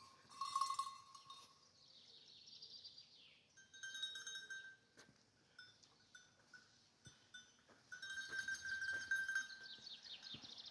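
Sheep bells clanking in irregular bouts as the sheep move, several bells each ringing at a different pitch.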